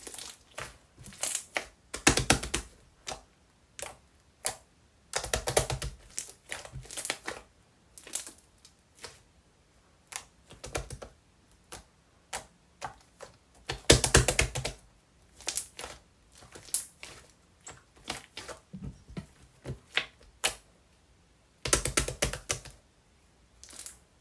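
Slime being squeezed and pressed, giving rapid crisp clicking and popping sounds in a few dense runs, with scattered single clicks between.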